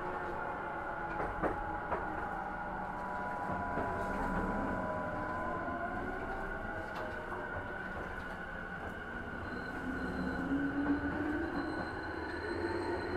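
Tobu 50050-series electric train running, heard from inside the car: steady wheel-on-rail rumble with the motor and inverter whine, whose tones glide slowly down in pitch as the train slows, and a tone rising again near the end.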